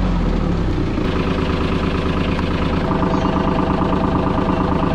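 Engine of a side-by-side UTV running steadily as it drives along the beach.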